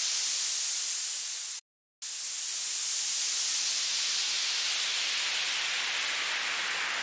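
Synthesized white-noise uplifter, its band-pass filter swept up, cuts off sharply about one and a half seconds in. After a short gap of silence the noise returns as a downlifter, the filter cutoff sweeping slowly down so the hiss grows gradually duller.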